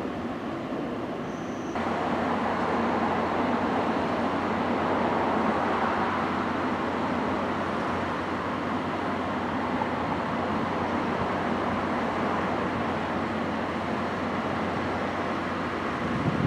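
DD51 diesel-hydraulic locomotive running on its twin V12 diesel engines while shunting passenger coaches: a steady engine drone with a low hum, growing louder about two seconds in.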